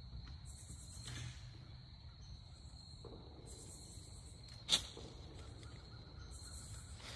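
Crickets chirring steadily outdoors, a continuous thin high trill with brief higher-pitched patches coming and going. One sharp click sounds about two-thirds of the way in.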